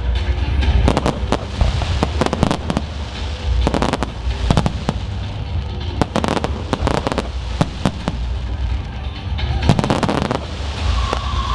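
Fireworks going off in quick succession: irregular sharp bangs and crackles, several a second at times, over a steady low rumble.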